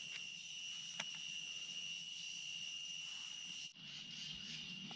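Quiet forest ambience: a steady, high-pitched insect drone with a faint tick about a second in. The drone drops away suddenly a little past halfway.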